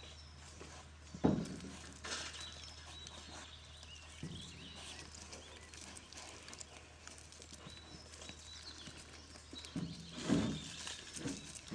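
Pigs grunting: one grunt about a second in, then a cluster of grunts near the end, with birds chirping faintly in the background.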